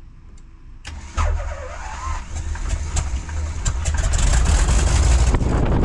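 Biplane's engine starting: a click about a second in, then the engine catches and runs steadily. A rushing wind from the propeller blast builds over the microphone in the last couple of seconds.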